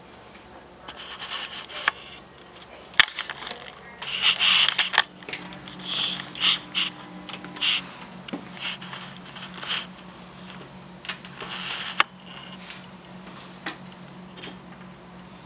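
Rustling and handling of a blood pressure cuff as it is wrapped around an upper arm, with short scraping bursts and a couple of sharp clicks. A steady low hum starts about four seconds in and carries on.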